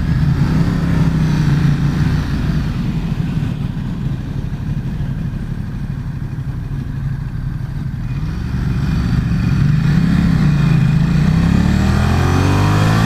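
Ducati XDiavel S's 90-degree L-twin engine idling steadily, then pulling away from about eight seconds in, its revs swinging up and down and climbing.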